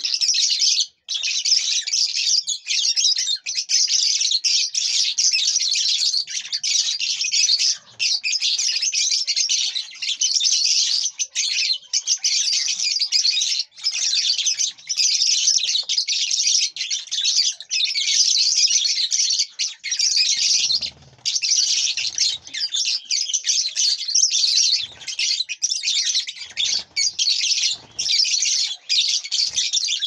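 A flock of lovebirds chattering: a dense, unbroken mass of high, shrill chirps and twitters. A few soft low thumps come in the second half.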